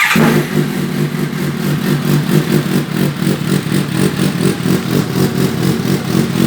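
Suzuki GSX-S750 inline-four engine starting through an SC-Project aftermarket exhaust: it catches suddenly at the start and settles into a steady idle with an even, pulsing exhaust note.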